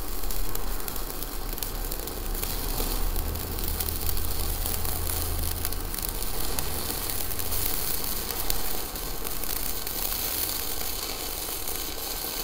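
Stick (MMA) welding arc at 60 amps from a Weldinger MEW 201 SYN ECO inverter welder, the electrode burning with a steady crackling sizzle.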